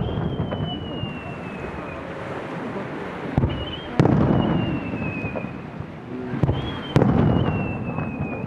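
Aerial fireworks shells: rising shells whistle with a high tone that slides slowly down in pitch, three times. Booming shell bursts come about three and a half, four and seven seconds in, the four- and seven-second ones loudest, each followed by a long rolling echo.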